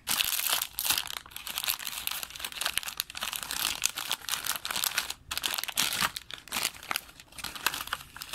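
Crinkly blind-bag packaging being crumpled and torn open by hand, a continuous crackling with brief pauses.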